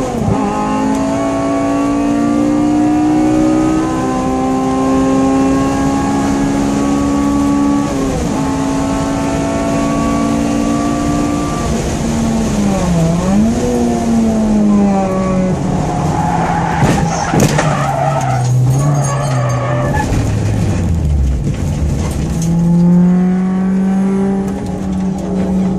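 Inside the cabin, a Honda Integra DC2's four-cylinder engine revs hard and rises in pitch through gear changes, then lifts off. A tyre squeal and sharp knocks follow as the car spins off the track on tyres not yet warmed up. The revs then drop low before picking up again near the end.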